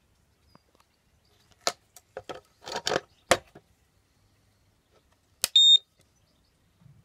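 Several handling clicks and rattles, then a sharp click and a short, loud, high-pitched beep from a 12-volt power inverter wired to a car battery.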